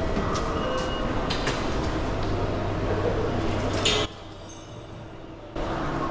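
Station concourse ambience: a steady hubbub and rumble with a few sharp clicks and a short beep, dropping much quieter for about a second and a half around four seconds in.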